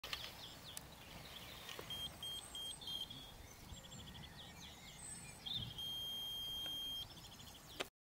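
Electronic beeping from the Auto Launch remote-control dummy launcher system: four short beeps, a quick run of rapid beeps, then one long steady beep of about a second followed by another rapid run. Small birds chirp in the background, and a sharp click comes just before the end.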